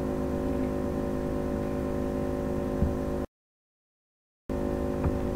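Steady electrical hum with hiss, the background noise of the recording. It cuts to dead silence for about a second past the middle, then comes back.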